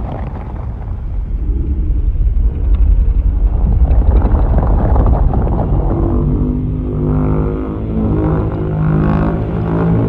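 Godzilla's atomic breath sound effect: a loud, low rumbling rush that builds over the first few seconds, with steady pitched tones rising out of it from about six seconds in.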